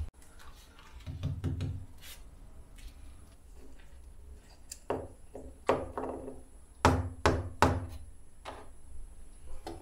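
Light knocks of a plastic LED bulb being handled and set down on a wooden workbench, a few soft ones early and sharper ones in a quick cluster about seven to eight seconds in.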